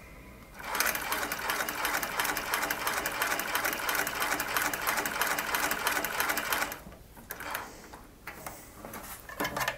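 Seiko TE-6B cylinder-arm industrial sewing machine stitching through a leather strip at a fast, even rate, starting about half a second in and running for about six seconds before it stops. A few light clicks follow.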